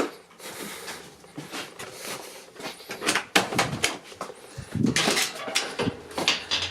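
Irregular knocks, clicks and rustling from someone moving about while carrying the camera, with no siren sounding.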